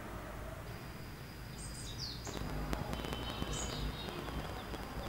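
Outdoor street ambience: a low steady rumble of distant traffic with a few short bird chirps and a thin steady high tone, plus a few faint clicks.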